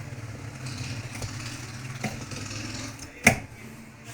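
A low steady mechanical hum that fades away over the first three seconds, with a few light clicks and then one sharp knock a little over three seconds in.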